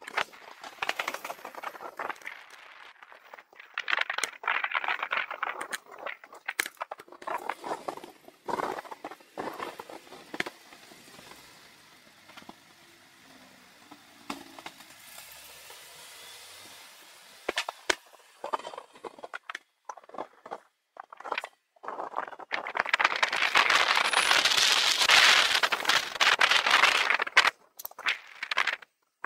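Wind noise buffeting the microphone of a camera on a moving bicycle. It comes in uneven gusts with brief dropouts, is quieter through the middle and loudest over the last six seconds or so.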